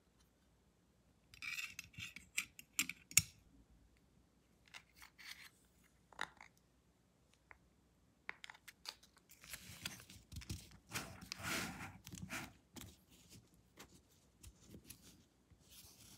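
Hands handling a stainless steel Ridge card wallet and its money clip: a series of small clicks, taps and scrapes, with the sharpest clicks a couple of seconds in and a longer stretch of rubbing and scraping about ten to twelve seconds in.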